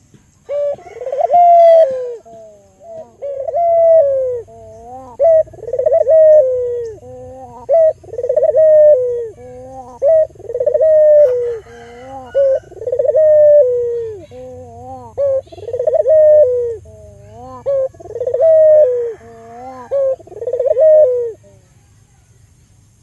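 Albino local puter dove cooing: a long series of repeated, rounded coos with rising-and-falling pitch, phrase after phrase, stopping shortly before the end.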